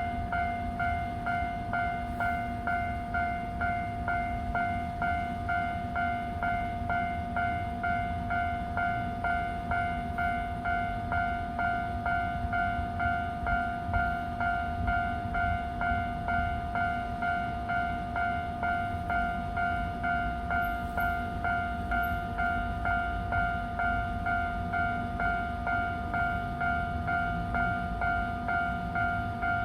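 Japanese railway level-crossing warning bell ringing continuously in a rapid, even ding-ding rhythm, with a low rumble underneath. The crossing is held closed because a train is stopped at it.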